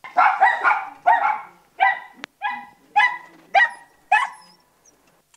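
Border Terrier barking, about eight short, sharp barks about two a second, with a second terrier barking along at the start. It is excited barking, which the owner's note puts down as possibly squirrel-motivated.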